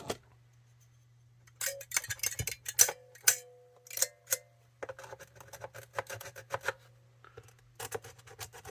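Clicks and scraping as batteries are handled and the battery contacts of a Sony ICF-2001 radio are cleaned, starting about a second and a half in: a run of sharp clicks and short scratchy rubs with a faint squeak in places.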